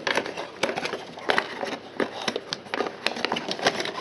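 Cardboard retail box and a small white plastic siren unit being handled as the unit is packed back into the box: irregular taps, scrapes and light rustles of cardboard and plastic.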